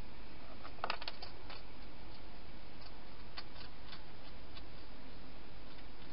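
Steady background hiss with a cluster of sharp clicks about a second in, then a few fainter ticks a couple of seconds later.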